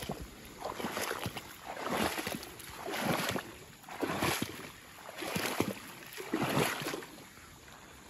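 Footsteps wading through shallow marsh water and tall grass: a slosh of water and swish of stems with each stride, about one step a second.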